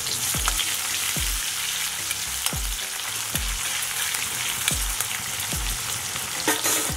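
Chopped red onions sizzling steadily in hot oil in an iron kadai, stirred with a spatula. A low thumping beat repeats underneath, about once every three-quarters of a second.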